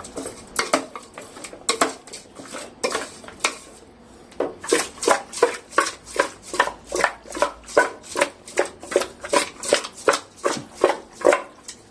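Chicken pieces being mixed with a thick curd and spice marinade in a metal bowl, clinking and scraping against it. The knocks are irregular at first, then from about four seconds in settle into a steady rhythm of about three a second.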